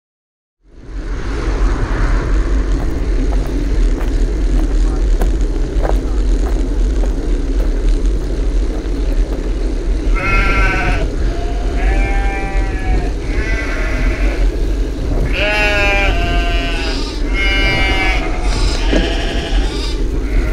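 Wind buffeting a bike-mounted camera microphone while riding, a steady rumble. From about halfway, a series of short, high-pitched wavering calls, roughly one a second.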